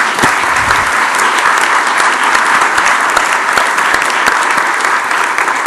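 Audience applauding steadily, a dense, even clapping from a roomful of people.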